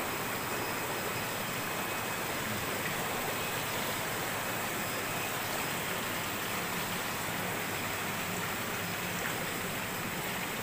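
Steady rushing and splashing of aerated, circulating water in live-fish holding tanks.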